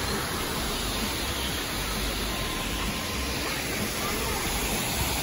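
Steady rushing and splashing of water pouring from water-slide outlets and fountains into pools, an even hiss with a low rumble under it.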